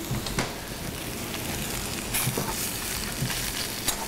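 Spiced potatoes sizzling in a cast-iron skillet over a gas burner, with a steady hiss. A fork scrapes and taps against the pan a few times as it mashes the potatoes.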